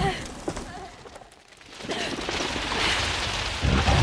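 Creature-fight sound effects from an action film. A short pitched cry comes at the start, then a rising rush of crackling, crashing noise, and heavy low thuds near the end.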